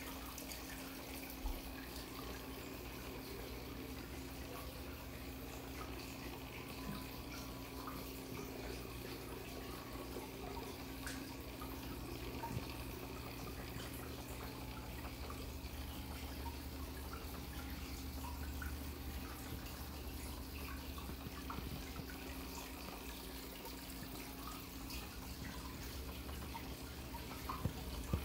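Aquarium water trickling and dripping steadily, with small ticks of drips and a steady low hum underneath.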